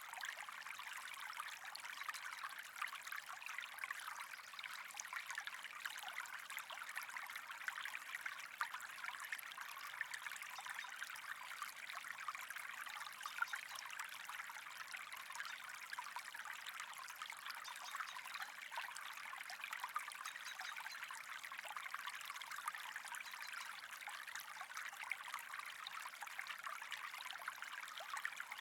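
Steady trickling, bubbling water with a dense fine crackle.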